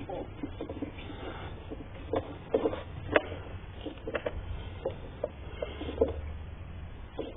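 Scattered light clicks and knocks of hands and tools working on car parts, over a low steady hum.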